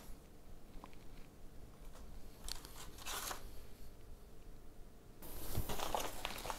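Sheets of paper rustling and crinkling as they are handled: a couple of short rustles about halfway through, then a longer stretch of rustling near the end.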